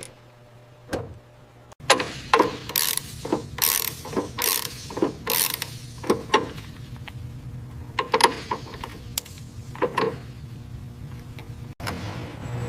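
Hand ratchet wrench being worked: from about two seconds in, a run of sharp clicks and short rasping ratchet strokes as a fastener is turned, over a steady low hum.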